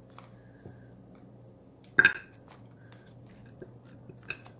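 Frozen chocolate peanut butter cups popping out of a flexed silicone candy mold and dropping onto a ceramic plate: a few light clicks and one sharp clink about two seconds in.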